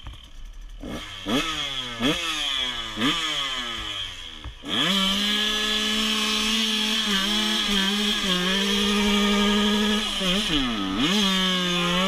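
Dirt bike engine revved without load: three or four quick throttle blips, each rising and falling in pitch, then held at high revs for several seconds with two brief dips.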